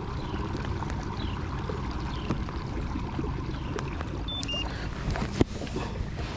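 Water noise around a moving fishing kayak's hull, a steady low rumble with scattered small clicks and one sharper click about five and a half seconds in.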